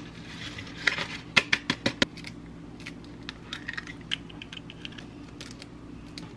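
A paper pouch of brown gravy mix crinkling and being tapped out into a glass mixing bowl: a quick run of sharp clicks in the first two seconds, then fainter ticks.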